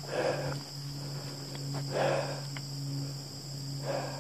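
Steady, high-pitched chirring of crickets in a grassy field, over a low steady hum. Three soft swishes come about two seconds apart.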